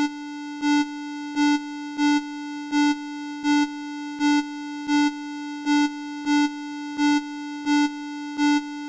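Electronic emergency alert alarm tone: one steady tone held at a single pitch that pulses louder about three times every two seconds.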